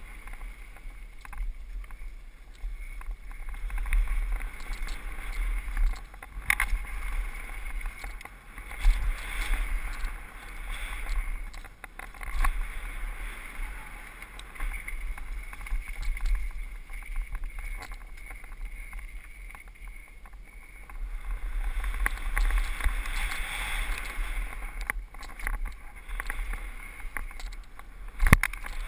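Mountain bike running fast down a dry dirt trail, heard from a camera mounted on the bike: low wind rumble on the microphone, tyres on loose dirt and the bike rattling, with a few sharp knocks over bumps.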